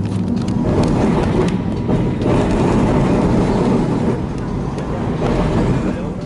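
W8-class tram running on its rails, heard from on board: a steady low rumble of wheels and motors with scattered clicks and rattles.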